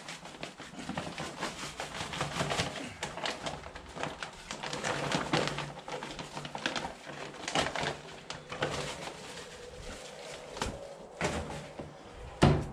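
Gritty, irregular scraping and rustling as jointing compound is spread over the joints of a wet cobblestone floor, with a knock near the end.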